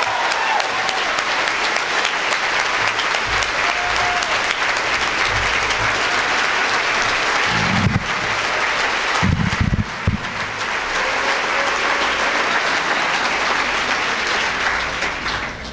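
Audience applauding steadily, dying away near the end, with a couple of low thumps about halfway through.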